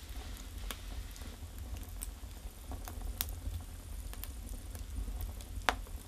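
Firewood burning in a Russian stove, crackling with a few scattered sharp pops, the loudest near the end, over a low steady rumble.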